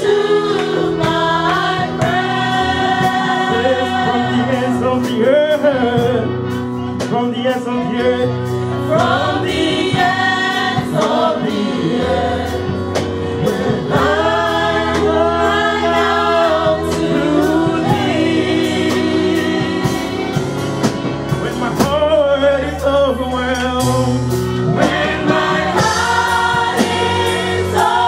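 Live gospel worship singing: a male lead and a group of female backing singers sing into microphones over a band, with sustained bass notes and drum and cymbal hits underneath.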